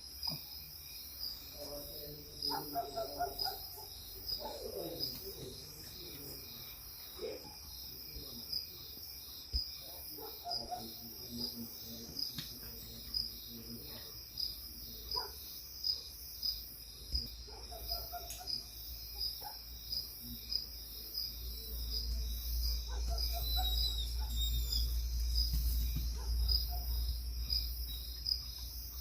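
Night chorus of crickets, a steady pulsing high-pitched trill. Every few seconds a short pitched call from some other animal comes in, and a low rumble builds in the second half.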